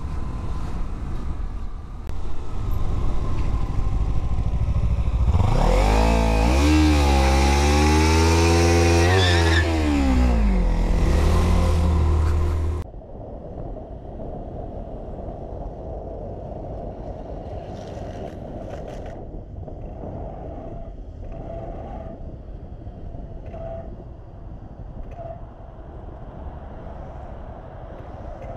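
Motor scooter engine and wind rush while riding. From about five seconds in, the engine revs hard, its pitch rising and falling for several seconds. It then cuts off suddenly to a quieter, steady engine and road noise.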